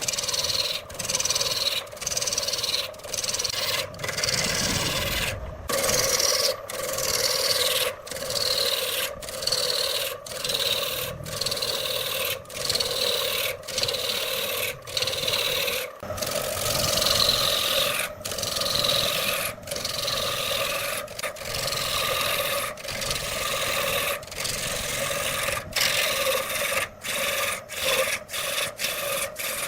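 Woodturning tool cutting and scraping a spinning wooden workpiece on a lathe, over a steady hum. The cutting comes in a long run of short passes, each broken off by a brief gap.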